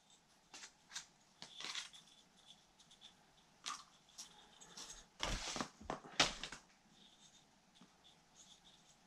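Tissue paper and a cardboard box rustling as they are handled, with scattered light clicks and a couple of louder thumps about five and six seconds in.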